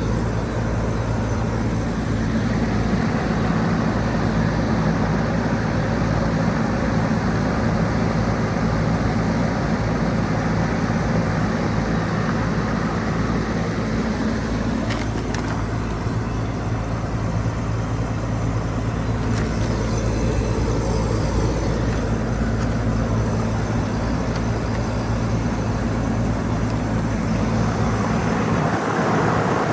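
Goodman GSZB4 2.5-ton heat pump outdoor unit running steadily through a defrost cycle, a constant low compressor hum under a rushing noise.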